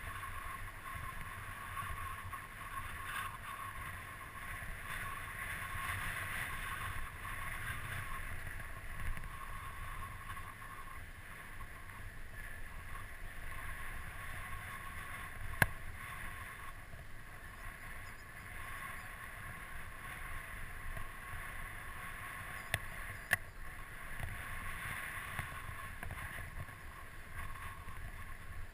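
Mountain bike descending a dry dirt singletrack, heard from a helmet-mounted camera: a steady rumble of wind and knobby tyres on the trail, with a few sharp knocks, the loudest about halfway through.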